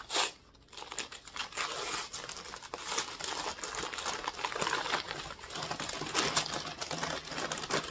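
Paper wrapping crinkling and crumpling as it is pulled off a candlestick, a dense, continuous run of crackles.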